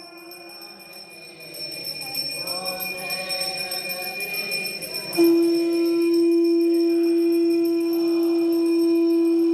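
Music with a singing voice, then a loud, single steady held note that starts suddenly about five seconds in and is sustained to the end.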